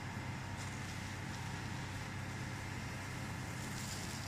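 A 5-ton-per-day flake ice machine running with a steady low hum. Near the end, a plastic scoop scrapes into a pile of fresh ice flakes with a brief rustle.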